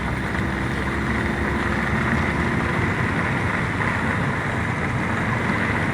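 Steady low rumble and hiss inside a car's cabin, with a faint steady hum for the first few seconds.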